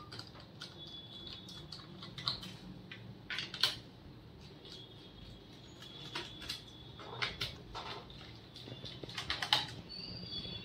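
Irregular small clicks and ticks of a screwdriver turning out screws from a laptop's plastic bottom case.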